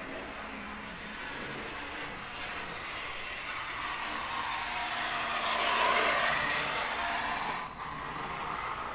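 Vintage 1950s Revell F7 model locomotive running fast at around 45% power: a rather noisy whir of its motor and gear drive with wheel noise on the rails. It swells to its loudest about six seconds in, then drops back.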